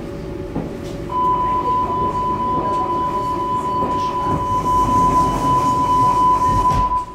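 Door-closing warning signal of a Hamburg DT4 metro train standing at a station: a steady high beep starts about a second in and holds for about six seconds. It stops near the end, and the background noise drops at the same moment.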